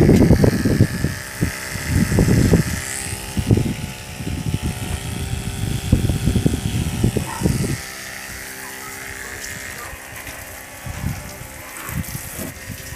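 A 12 V mini diaphragm water pump runs with a steady small-motor hum while pumping water through a thin hose. Irregular loud low rumbles lie over it for the first several seconds, then die away.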